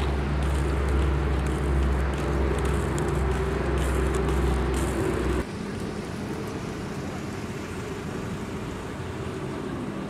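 Steady low mechanical rumble, like a vehicle engine running, that cuts off abruptly about five and a half seconds in, leaving a quieter outdoor background.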